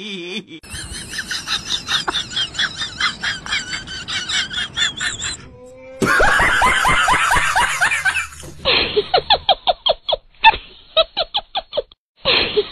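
Laughter in several cut-together segments: a fast run of giggling, a higher laugh about six seconds in, then a choppy string of short 'ha' bursts about four a second.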